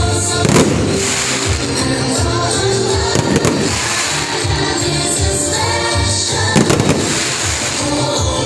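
Fireworks bursting over loud music, in three sharp bangs about three seconds apart. The music has a steady beat and singing.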